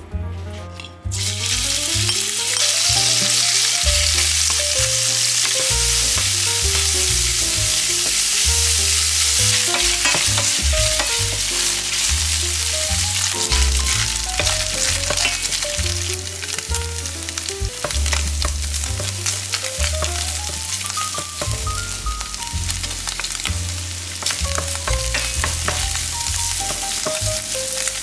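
Ground meat frying in hot oil in a nonstick frying pan: a loud sizzle starts abruptly about a second in and carries on steadily while a spatula stirs it, with scattered clicks and scrapes against the pan.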